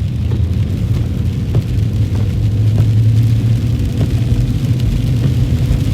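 A Jeep's engine and road noise heard from inside the cabin while driving, a steady low drone that swells a little about halfway through.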